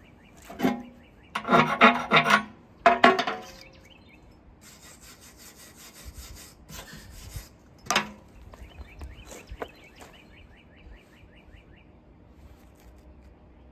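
Rough scraping strokes on metal, three loud ones in the first few seconds, followed by a quieter hiss and a single sharp knock about eight seconds in.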